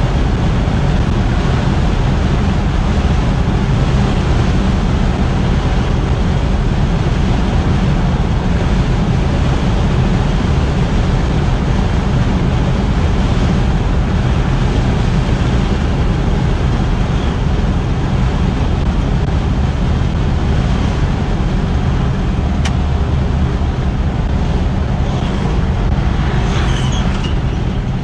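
Steady cruising noise inside the cabin of a 1958 Chevrolet Biscayne with its original 283 V8 and Powerglide automatic at highway speed: engine, tyre and wind noise blended into an even, low rumble.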